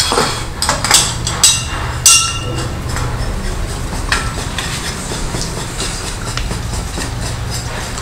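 Sharp metallic clinks and knocks from a stainless-steel flushing canister being handled and its gauge head fitted: a few in the first two seconds and one more about four seconds in, some leaving a brief ring. A steady low hum runs underneath.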